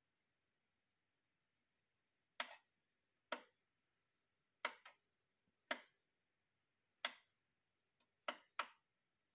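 Sharp clicks from the front-panel controls and auto-arm mechanism of a Denon DP-47F fully automatic direct-drive turntable as the locate and lifter buttons are worked: about eight separate clicks at uneven intervals, some in quick pairs near the middle and end.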